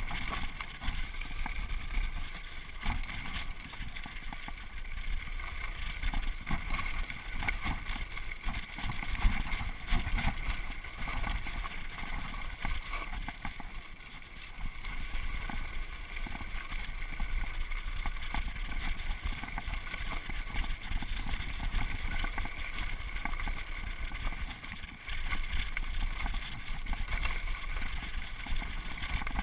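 Mountain bike coasting downhill over a rough dirt trail: wind buffeting the microphone with a constant rumble, and frequent small clicks and rattles from the bike as it runs over bumps.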